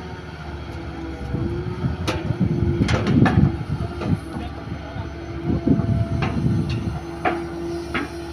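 Hitachi ZX200 hydraulic excavator working under load, its engine and hydraulics holding a steady whine that steps up about a second in, while the bucket digs into sand and soil with crunching scrapes and a few sharp clanks of the steel bucket on stones.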